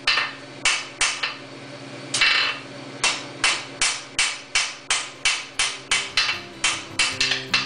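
Hand hammer striking a fluxed steel frame corner on an anvil to forge-weld it, each blow ringing brightly. After a few blows and a short pause, the hammering runs on in quick, even strokes, about four a second.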